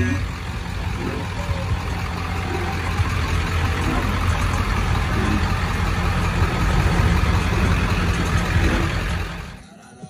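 Truck engine running close by: a deep, steady low rumble with a rushing noise over it, growing a little louder before cutting off suddenly near the end.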